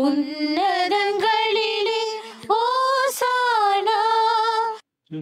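A woman singing solo without accompaniment, holding notes with a wavering vibrato; the singing cuts off abruptly near the end.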